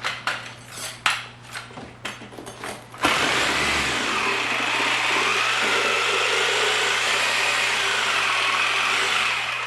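A few knocks and clunks as the heavy wheel is handled, then about three seconds in a power saw with a wood blade starts and cuts steadily through the run-flat tire's rubber for about six seconds before stopping near the end.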